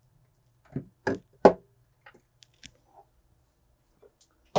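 Hand crimping tool clacking shut several times as it crimps a heat-shrink butt connector onto a wire: three sharp knocks about a second in, light handling ticks after, and another knock near the end.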